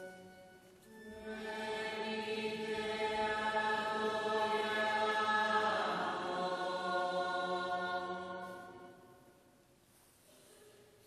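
Liturgical chant: a sung line ends at the start, then about a second in, a group of voices sings a response in long held notes, fading out after about eight seconds. This is typical of the sung exchange at the showing of the Cross on Good Friday.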